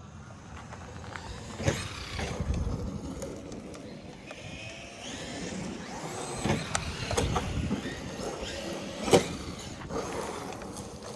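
Traxxas Maxx RC monster truck driving, its electric motor whining up and down in pitch as the throttle rises and falls. Several sharp knocks come from the truck hitting the ground or other things, the loudest about nine seconds in.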